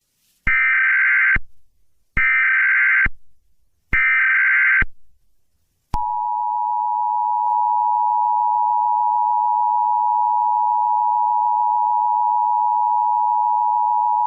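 Emergency Alert System tones: three short bursts of SAME header data tones about a second apart, then the two-tone EAS attention signal, a steady dual tone held for about eight seconds, which announces that an emergency alert message follows.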